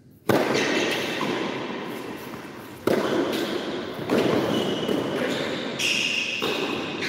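Tennis ball struck back and forth with racquets in a rally, starting with the serve. There are several sharp hits, each ringing on in a long echo through the enclosed hall.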